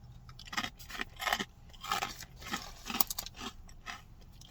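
Crunching and chewing of a hard, dry snack, a horseradish-flavoured rye crouton: irregular sharp crunches, about two a second.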